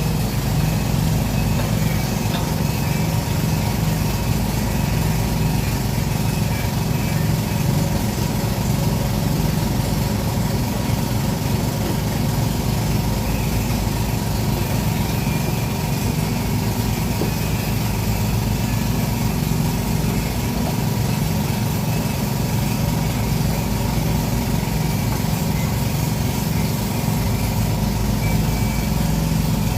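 Sumitomo SH210-5 excavator's diesel engine running steadily at an even speed, a constant low drone with no revving.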